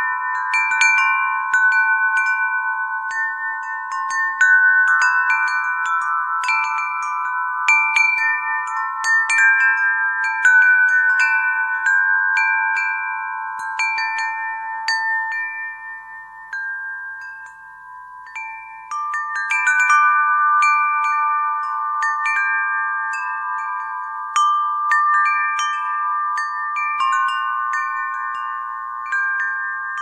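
Wind chimes ringing: several clear notes struck at irregular moments, each ringing on and overlapping the next. The strikes thin out a little past the middle and pick up again a few seconds later.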